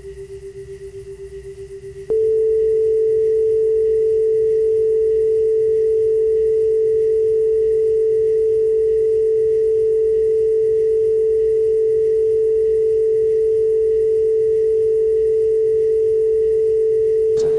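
Electronic sine-wave tones. A pure tone pulses at about five beats a second, and about two seconds in a much louder, steady pure tone slightly higher in pitch starts and holds alongside it.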